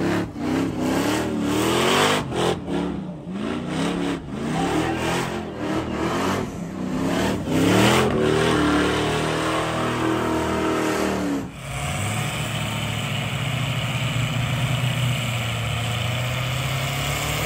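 A stripped tube-chassis burnout truck's engine is revved up and down again and again, its pitch sweeping, while the tyres spin. About eleven seconds in, this changes to a diesel pickup held at a steady high rev with its rear tyres spinning in a burnout.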